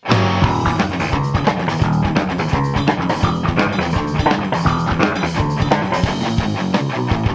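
Rock band playing an instrumental passage: guitar, bass guitar and drum kit, the full band coming in abruptly at the start after a brief gap of silence, with steady drum hits throughout.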